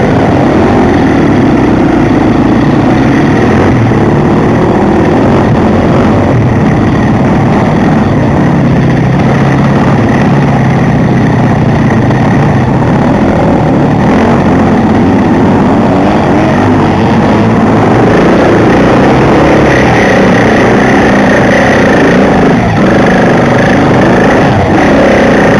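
Off-road enduro motorcycle engine running loud and close while the bike rides a dirt trail, its note shifting up and down with the throttle.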